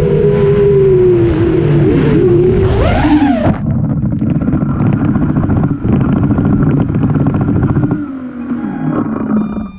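FPV racing quadcopter's brushless motors and propellers whining, the pitch rising and falling with the throttle. About three and a half seconds in, the sound changes abruptly to a rough, rattling buzz with a thin steady high tone over it, and it thins out again near the end.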